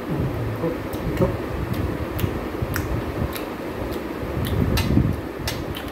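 A person chewing fried chicken and rice close to the microphone, with wet mouth smacks and clicks about two a second, irregularly spaced, over a steady low hum.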